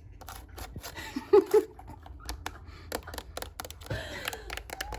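Old antenna radio's knobs and switches being fiddled with for ASMR: a run of small irregular clicks and taps, with a brief murmur of voice near the end.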